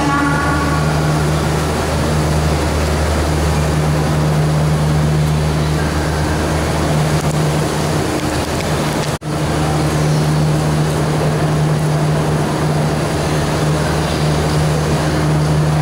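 Steady low drone of heavy workshop machinery with a strong low hum. It cuts out for an instant about nine seconds in.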